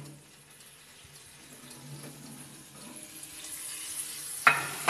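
Hot fat sizzling faintly in a glass roasting dish holding a freshly roasted pork knuckle, growing louder over a few seconds, over a low oven hum. Near the end there are two sharp knocks.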